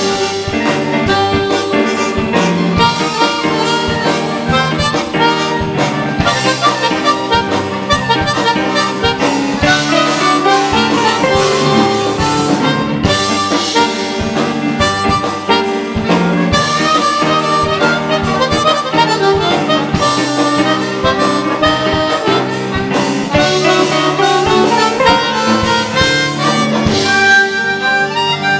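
Live band music with a harmonica playing the lead over guitar accompaniment.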